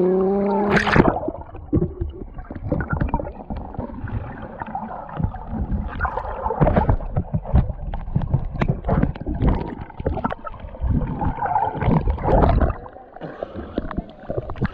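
Water sloshing and splashing around an action camera held at the surface while swimming, in an irregular run of splashes, the camera dipping underwater at times. A brief voice is heard right at the start.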